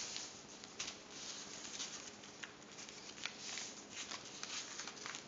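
A sheet of paper being folded and creased flat by hand: irregular paper rustling with scattered short, sharp crinkles.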